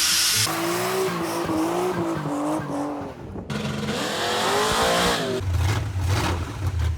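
A car engine revving, with a wavering pitched squeal over it, then a deep low engine rumble from about five and a half seconds in.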